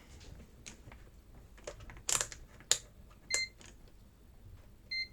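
Small clicks and knocks of handling a multimeter and its probes on the wires, with two short, high multimeter beeps, one just past the middle and one at the end.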